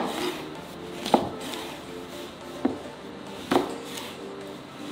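Kitchen knife slicing through a lemon and knocking on the cutting board: three sharp cuts, roughly a second apart.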